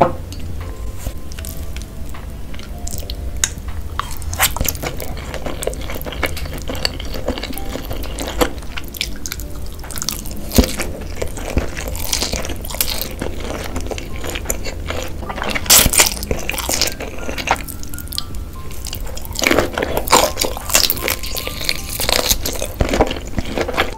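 Close-miked eating sounds: wet slurping and chewing of pesto spaghetti and shrimp, full of sharp, irregular mouth clicks and squishes, over background music.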